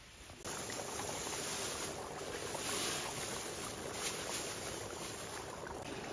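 Hot oil in a large wok sizzling hard as minced ginger and garlic are tipped in. The frying starts abruptly about half a second in and keeps up a steady, dense hiss.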